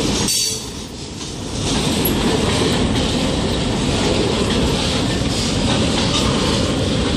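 Kansas City Southern freight train's autorack cars rolling past close by, the steady noise of steel wheels on rail. The sound drops briefly for about a second near the start, then returns to a steady level.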